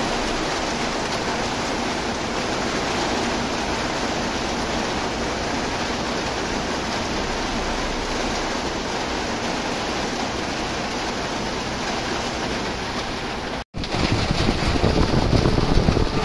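Heavy tropical rain pouring down, a steady dense hiss. It breaks off for an instant near the end and comes back louder and rougher.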